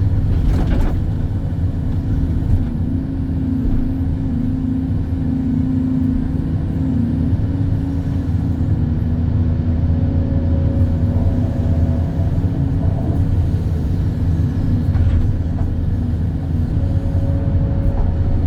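Excavator's diesel engine running steadily, its pitch shifting slightly as it works, with a faint higher whine coming in twice.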